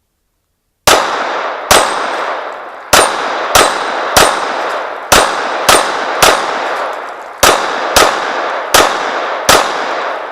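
Handgun firing about twelve shots in quick, uneven succession at steel targets, each shot followed by the ringing clang of the steel plate being hit. The shooting starts about a second in.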